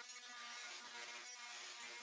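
Corded oscillating multi-tool running with a steady high buzz as its blade cuts through the plaster holding a plasterboard scotia in place.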